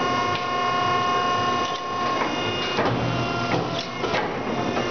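Challenge Titan 265 paper cutter running a cut through a stack of paper: a steady machine hum, then, about two seconds in, the hum breaks off into a run of clicks and knocks as the blade cycles.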